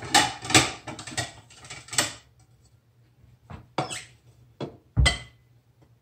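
Kitchen cupboard and dishes clattering as a plate is taken down, a few light knocks, then a plate set down on the counter with a clunk that rings briefly, about five seconds in.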